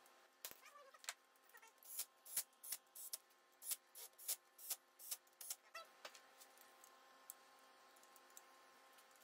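Sharp metallic clicks and taps of a ratchet and socket working on intake manifold bolts, about two or three a second for the first six seconds, with a few faint squeaks among them.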